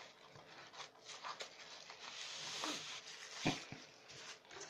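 Packaging being unwrapped by hand: a stretch of rustling and crinkling about two seconds in, then a sharp knock about three and a half seconds in, with lighter handling clicks around it.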